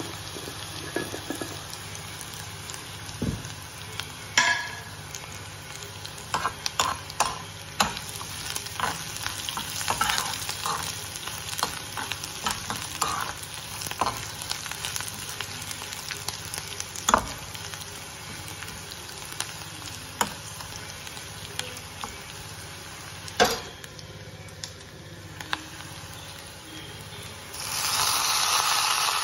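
Onions, dals, mustard seeds and dried red chillies frying in a metal kadai, with a steel spoon scraping and clicking against the pan as they are stirred. Near the end the sizzle rises suddenly and loudly as washed keerai greens are tipped into the hot pan.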